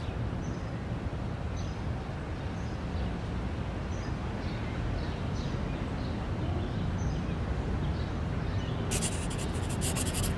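Pen writing on a slip of paper, short scratchy strokes over a steady background hiss, with a louder, rapid run of scratching about nine seconds in.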